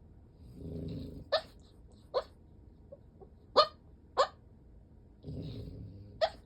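French bulldog asleep: two slow snoring breaths, and about five short, sharp yips in its sleep (sleep-talking).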